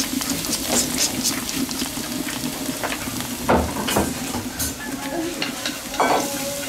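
Food sizzling in a hot pan over steady frying hiss, with a scatter of sharp knocks and scrapes as it is stirred.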